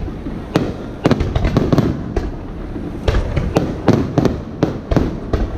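Aerial firework shells bursting in a rapid string of sharp bangs and crackles, in clusters about half a second in, between one and two seconds in, and again from about three to five seconds in.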